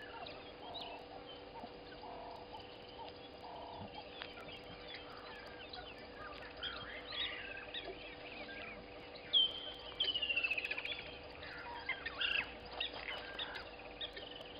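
Wild birds calling: scattered short chirps and whistles over a faint steady hum, with a loud falling whistle about nine seconds in followed by a quick falling trill.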